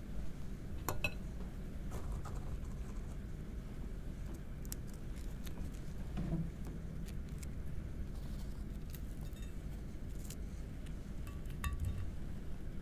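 A few light taps and clinks of a spoon and crackers against a ceramic plate, spread out over a steady low hum, with a slightly ringing clink near the end.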